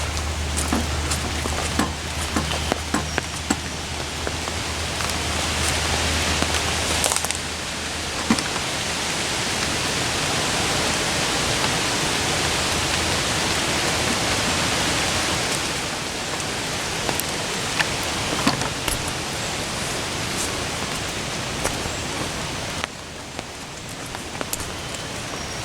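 Rain falling steadily, with many individual drops landing close by as sharp taps. The rain gets louder about seven seconds in and eases near the end.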